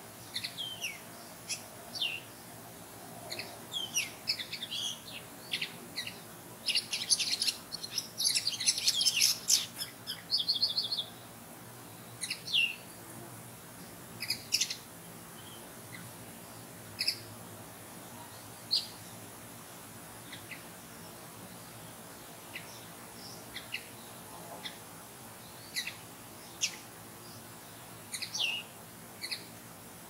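Songbirds chirping and singing in short scattered phrases, with a dense burst of song about a quarter of the way in that ends in a rapid trill of repeated notes. After that come sparse single chirps.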